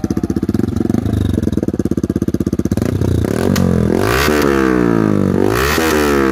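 Yamaha MT-15's 155 cc single-cylinder engine running through an aftermarket SC Project silencer: it idles with an even pulse, then is revved twice from about three seconds in, each rev climbing and falling back.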